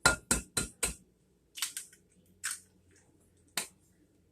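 An egg tapped four quick times against a hard edge to crack its shell, followed by a few softer clicks as the shell is handled.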